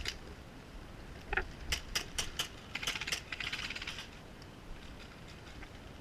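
Airsoft guns firing: several single sharp cracks, then a quick rattling burst of rapid shots about three seconds in.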